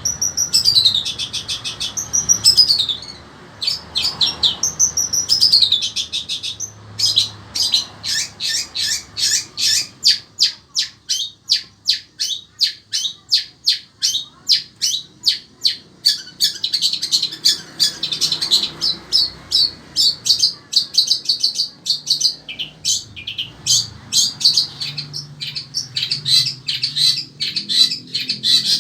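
Long-tailed shrike singing loudly: a few falling slurred whistles, then a fast run of sharp repeated notes that turns into dense, varied chattering.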